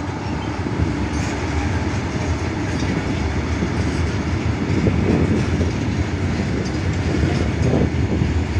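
Freight wagons of a long goods train rolling past at close range: a steady, heavy rumble of steel wheels on rail, with a few faint knocks from the wheels over the rail joints.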